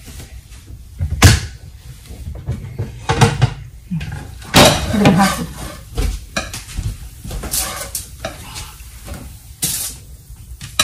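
Metal spatula tapping and scraping on a hot flat tawa as a flatbread is laid on it and moved about, with light sizzling from the pan.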